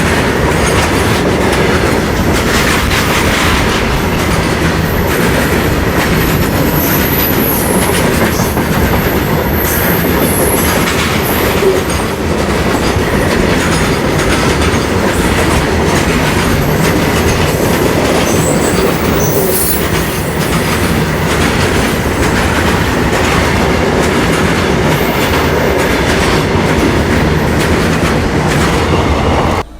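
Freight train wagons rolling past steadily, wheels clattering over the rail joints, with thin high-pitched wheel squeal coming and going.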